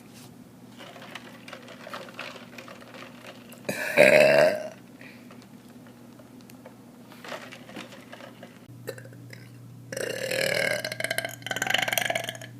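A woman burping twice: a short, loud burp about four seconds in and a longer, drawn-out burp near the end.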